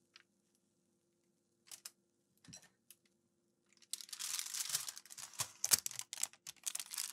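A few faint taps, then from about halfway a white cooking paper sheet crinkling and rustling loudly as it is lifted out of a frying pan with a grilled rice ball on it.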